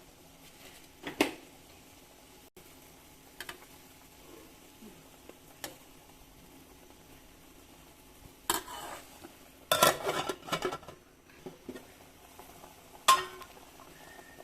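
Kitchen utensils and cookware clinking and knocking against pots and dishes. There are scattered single clinks, a busy cluster of clatter about two-thirds of the way in, and a sharp clank near the end.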